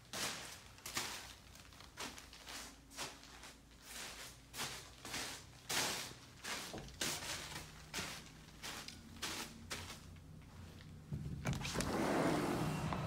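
Footsteps walking steadily through empty rooms, about two steps a second. Near the end a louder, steady rush of outdoor wind noise comes in as the walk reaches a doorway to the yard.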